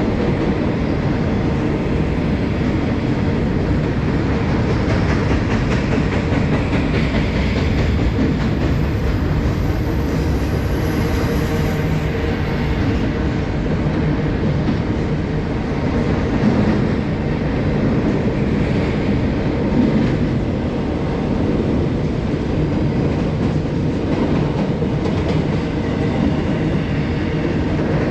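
Norfolk Southern freight train rolling past, a steady, unbroken rumble of train and wheels on the rails.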